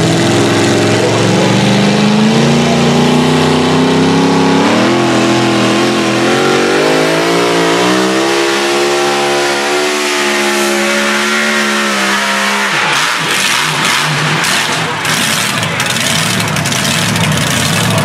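Two-wheel-drive pulling truck's engine at full throttle under load, its pitch climbing steadily for about eight seconds, holding high, then dropping away at about twelve seconds as it comes off the throttle. A rough, noisy rush with crackles follows.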